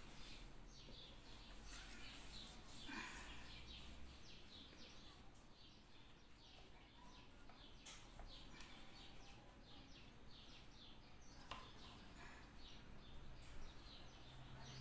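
Near silence, with faint small birds chirping over and over in the background and a couple of light knocks.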